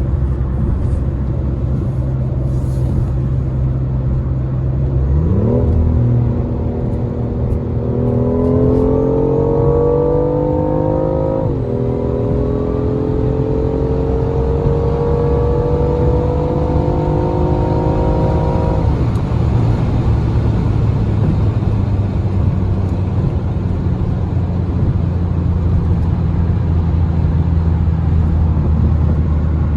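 BMW i8 Roadster's turbocharged three-cylinder engine pulling hard under full acceleration, its note rising in pitch. About eleven seconds in the pitch drops at an upshift, then climbs again. After about nineteen seconds the engine note fades into a steady low drone of road and wind noise at high speed.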